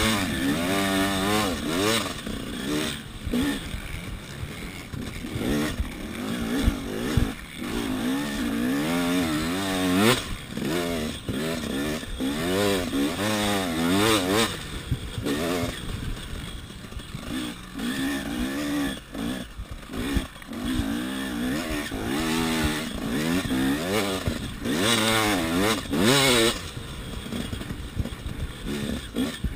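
KTM 300 EXC's single-cylinder two-stroke engine revving hard as the bike is ridden, its note rising and falling over and over as the rider opens and shuts the throttle, heard close up from the rider's chest.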